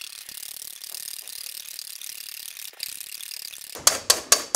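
Balloon whisk beating heavy cream by hand in a stainless steel bowl: a fast, steady scratchy swish of the wires through the thickening cream, then, near the end, sharp clacks of the whisk against the bowl, about four a second.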